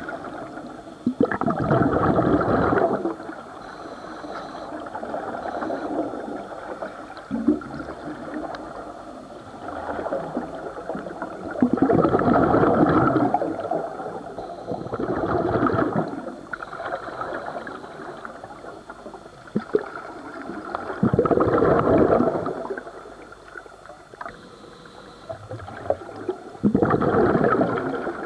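Scuba diver's exhaled bubbles gurgling from a regulator underwater, in about six bursts of a second or two each, with quieter breathing noise between.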